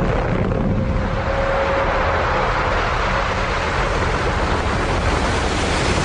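A huge wave of water surging across a lake and crashing over a rocky shore: a loud, continuous rushing noise.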